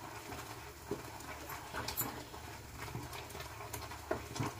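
Spoon stirring a curry masala in a pan, with a few light, irregular knocks and scrapes over a low steady hum.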